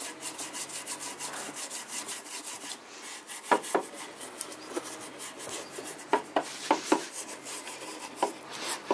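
Pad of 00 steel wool scrubbed quickly back and forth over a wooden drawer front wet with boiled linseed oil, a fast run of short rasping strokes that lifts the old crazed shellac. A few louder, sharper strokes come in the second half.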